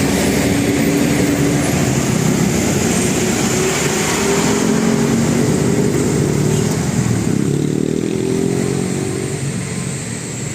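Motor vehicle running close by, with several held tones that shift in pitch every second or two over steady engine and road noise.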